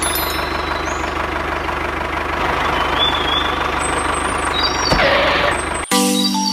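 An engine running steadily with a constant low hum. About six seconds in it cuts off abruptly and music with mallet-like notes starts.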